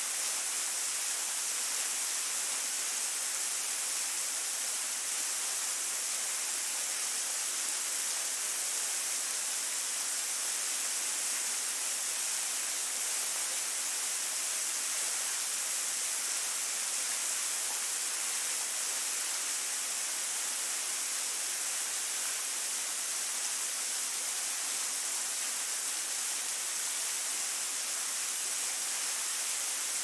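Thin curtain waterfall splashing onto rocks: a steady, even hiss with almost no low rumble.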